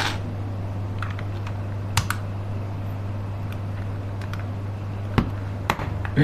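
Mechanical keyboard keys pressed one at a time, single sharp clicks about every half second to a second, over a steady low hum.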